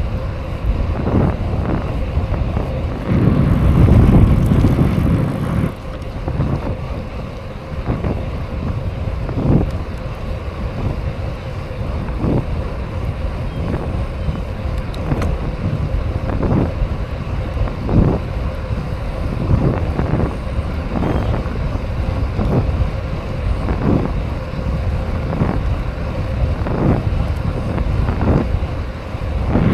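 Riding a BMX bike: wind rushing over the microphone over the steady rolling noise of the tyres on pavement, with a heavier gust a few seconds in. From about eight seconds on, a soft knock comes regularly, about every second and a half.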